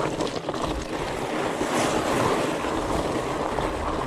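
Fat bike's 26x4.8 Maxxis Colossus tyres rolling over loose gravel and rock, a steady crunching rush mixed with wind noise on the microphone.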